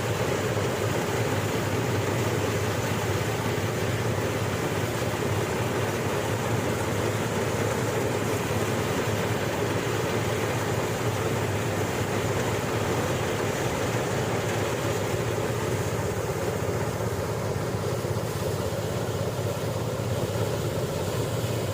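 Engine of a motorized rice-threshing machine running steadily at a constant speed, a continuous even hum.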